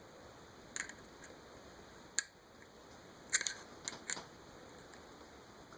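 A few faint, sharp clicks and taps of a small screwdriver and a spinning reel being handled while its bail screws are worked loose.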